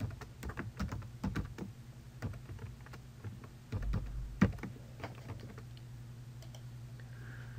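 A password being typed on a computer keyboard: a run of quick, uneven keystrokes, then a louder click about four and a half seconds in, over a steady low hum.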